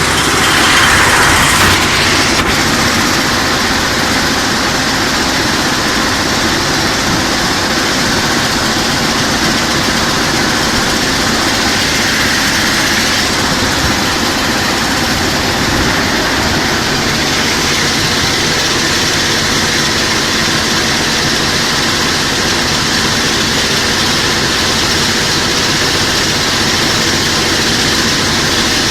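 Coal recycling machine running at a work site: a loud, steady mechanical drone and hum that holds unchanged throughout.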